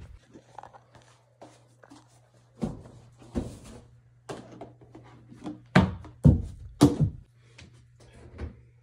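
A run of household knocks and thumps from laundry being loaded and a detergent bottle handled at a washing machine, the three loudest close together about six to seven seconds in, over a steady low hum.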